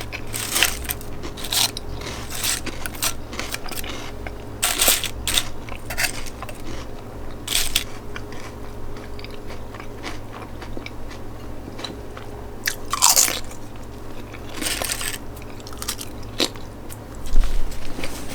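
A person chewing crunchy food close to the microphone: irregular crisp crunches, some louder than others, between stretches of quieter chewing.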